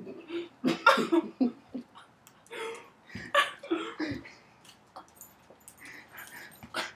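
A person coughing and choking in short irregular fits after a mouthful of ground cinnamon dried the throat.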